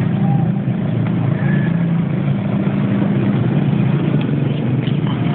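Steady low drone of a running vehicle engine.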